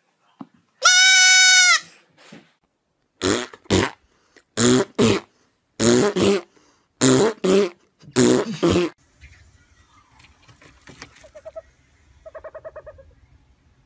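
A young goat kid gives one long, loud, high bleat about a second in. It is followed by five pairs of short harsh animal sounds, and a faint quick trill of chirps near the end.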